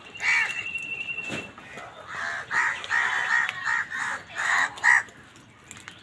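A flock of house crows cawing, harsh overlapping caws in a quick run that is thickest between about two and five seconds in.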